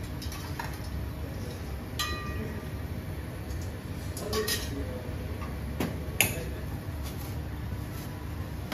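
Tableware clinking: a few sharp knocks of dishes and utensils, one about two seconds in ringing on briefly, a little cluster in the middle and the loudest about six seconds in, over a steady low hum.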